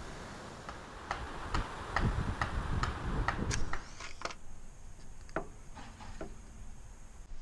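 A regular run of sharp mechanical clicks, about two a second for some three seconds, over low handling bumps, then a few scattered clicks as small gear is handled in the hands.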